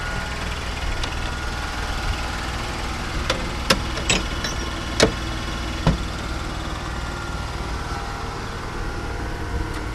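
An electric truck's accessory assembly running steadily, its motor driving the air compressor for the air brakes and the power-steering pump. A few sharp clicks and knocks come through the middle seconds.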